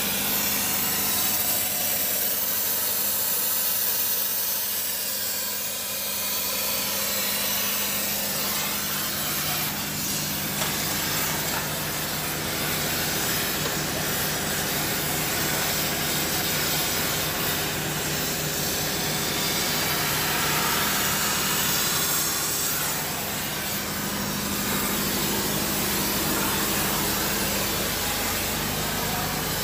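Steady hiss of a gas cutting torch cutting through steel, over the steady hum of an idling diesel engine.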